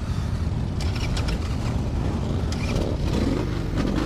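Harley-Davidson Sportster air-cooled V-twin motorcycle engines running with a steady low rumble, with a few short crackles about a second in.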